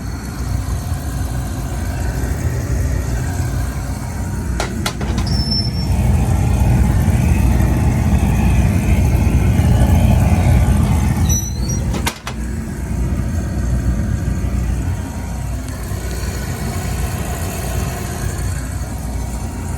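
Carlin oil burner firing in an old Weil-McLain steam boiler: a steady, loud low rumble of the burner motor, fan and flame, with sharp clicks about five and twelve seconds in.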